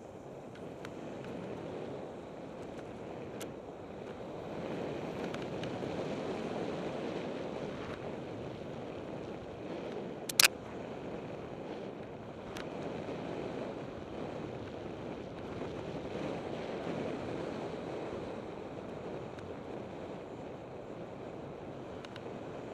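Wind rushing over the camera microphone mixed with tyre and trail noise from a mountain bike riding a dirt singletrack, swelling and easing with speed. One sharp click about ten seconds in, with a few fainter ticks.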